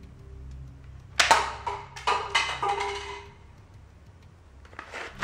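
A homemade cardboard toy gun fires with a sharp snap about a second in. A run of quick knocks and clatters follows for about two seconds: a plastic cup knocked off the table, bouncing and rattling on the tile floor.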